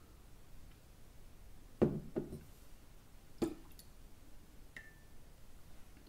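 Bar tools handled on a counter: light knocks, two close together about two seconds in and another a second and a half later, then a brief faint ring.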